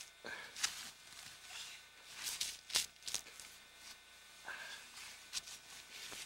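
Short rustles, scuffs and strained breaths of a person pushing up from a kneel under a very heavy backpack, several brief bursts with a busier cluster near the middle.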